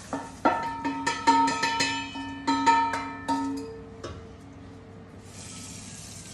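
Metal cookware clanging: about a dozen irregular strikes over four seconds, each leaving the same ringing tones. Then a kitchen tap starts running into the sink about five seconds in.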